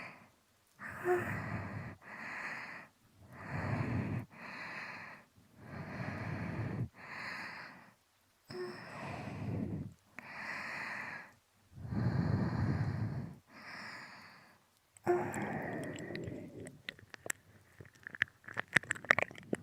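Slow, heavy breathing close into a binaural microphone, about six paired breaths with short silences between them. Near the end, wet mouth clicks and licking sounds begin, the start of ASMR ear-licking.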